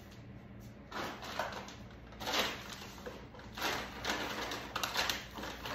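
Rummaging sounds: several irregular bursts of rustling and knocking as food packages are handled and taken off pantry shelves.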